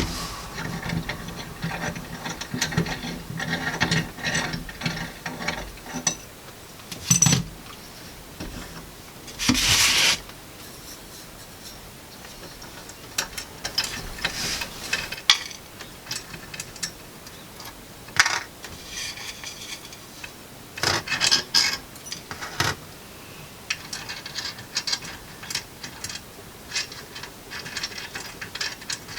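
Metal parts of a hand-cranked grain mill clicking, scraping and rattling as it is taken apart, with a louder scrape just before ten seconds in.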